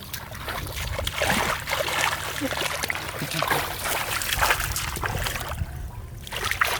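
Water splashing and trickling, with many small irregular clicks and knocks and a steady low hum underneath.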